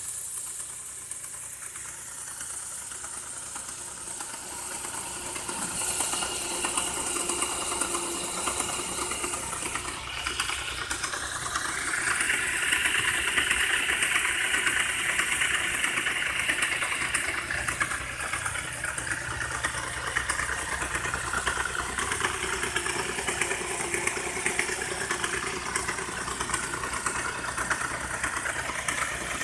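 ZMZ-406 petrol engine running with a fast, continuous clattering knock from its timing chain drive: a timing-drive knock, the sign of a problem in the chain drive. The clatter grows louder about ten seconds in and stays up.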